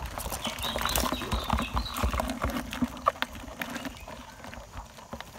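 Live crabs crawling in a plastic tub, their legs and claws tapping and scraping on the plastic in a scatter of irregular clicks.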